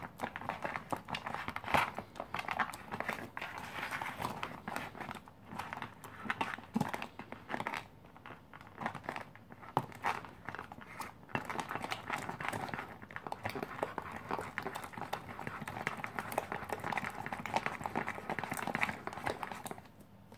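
Plastic spoon stirring rehydrated freeze-dried chicken curry inside its foil-lined pouch, with the pouch crinkling as it is held. It is a steady run of small crackles and scrapes that stops near the end.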